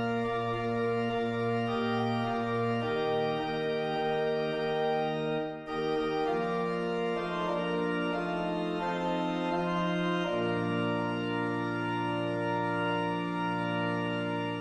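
Organ music: slow, held chords that change every few seconds, with one brief break near the middle.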